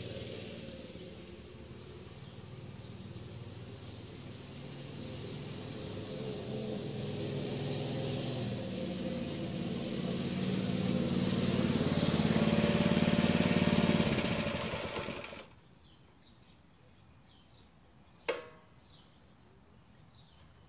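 Baja mini bike's 196 cc single-cylinder engine running smoothly, growing louder as the bike rides closer, then shut off about fifteen seconds in. A single sharp clank follows a few seconds later, with faint birdsong after.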